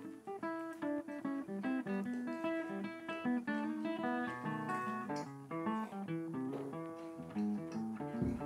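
Background music: acoustic guitar playing a steady run of short plucked notes over chords.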